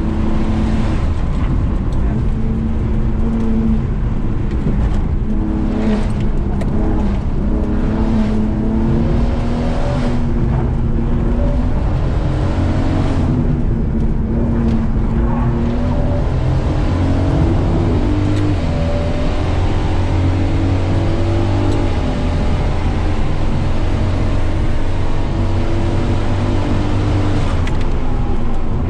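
BMW E81 track car's N54 twin-turbo straight-six, heard from inside the cabin on a track lap. The revs climb and drop back again and again as the dual-clutch gearbox shifts, hold steadier for a few seconds past the middle, then climb again near the end, over steady road noise.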